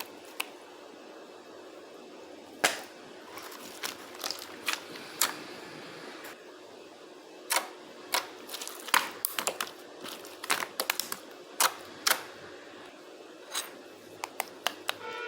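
Jiggly slime being pressed and worked by hand, giving irregular sharp clicks and pops, bunched most densely in the middle of the stretch.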